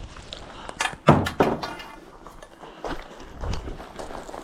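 A few knocks and clanks of metal being handled: EMT conduit and a hand bender being positioned for an offset bend, with the loudest thunk about a second in.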